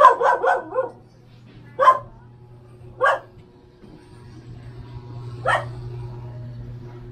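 A dog barking: a quick run of about five barks at the start, then single barks about two, three and five and a half seconds in.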